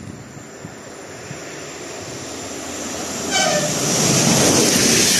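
A Newag Griffin electric locomotive hauling an express passenger train, approaching and running through the station at speed. Its rumble grows steadily louder, with a short horn toot about three seconds in, then the loud rush of the locomotive and coaches passing close by.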